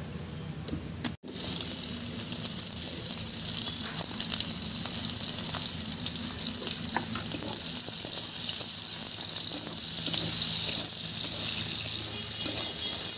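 Sliced onions sizzling in hot oil in an iron kadhai, a steady loud hiss that starts suddenly about a second in, with light scrapes and clicks of a wooden spatula stirring them.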